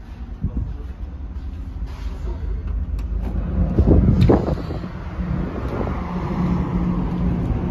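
Steady low drone of a car ferry's engines heard from inside the ship. About four seconds in, a heavy deck door's lever handle clunks and the door is pushed open, and the rumble grows louder and fuller with a rush of air once out on the open deck.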